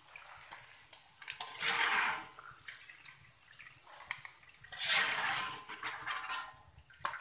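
Peanuts frying in hot oil in a wok, sizzling as they are scooped out with a wire-mesh strainer and a perforated metal skimmer. The hiss swells twice, about two and five seconds in, with light clicks of the metal utensils against the wok.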